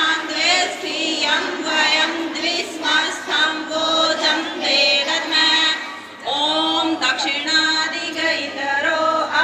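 A group of voices chanting a Sanskrit Vedic prayer in unison, a sung recitation with a brief pause about six seconds in.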